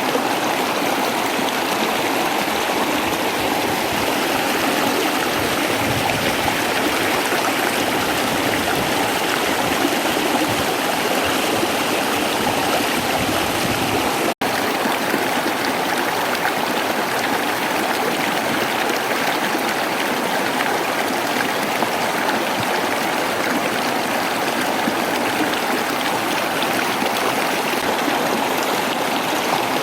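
Waterfall, water rushing and splashing steadily. The sound cuts out for an instant about halfway through.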